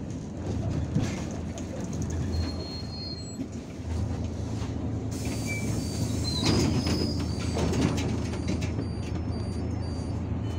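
Cabin noise of an Irisbus Citelis 12M city bus slowing to a stop, its engine then idling as a steady low hum. About five seconds in there is a burst of hiss and rattling lasting a few seconds.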